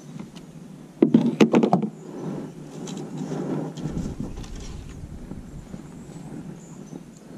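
A quick run of hard knocks about a second in, then softer rustling and a low rumble from about four seconds in, as a kayak is tied off with a rope to a wooden dock piling.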